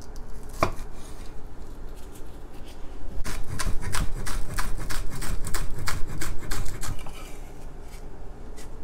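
Chinese cleaver chopping green onions on a round end-grain wooden chopping board: a single chop, then a quick even run of chops at about five a second for several seconds.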